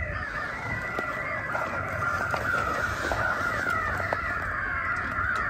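Many crows cawing at once, their calls overlapping into a steady, continuous din. A few faint clicks sound under it.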